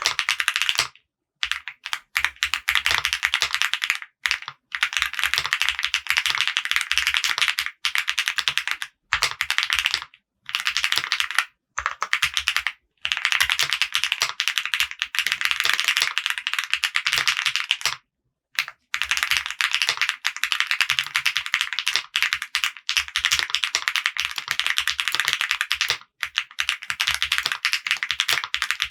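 Fast, continuous typing on a Mr. Suit mechanical keyboard with an FR4 plate, CMK ABS keycaps and Krytox-lubed Akko CS Jelly White linear switches: a dense stream of key clacks, broken by a few short pauses.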